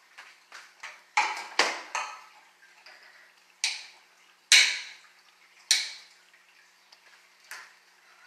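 Irregular sharp clinks and knocks of kitchen utensils against dishes, about ten in all, each ringing briefly, the loudest about halfway through.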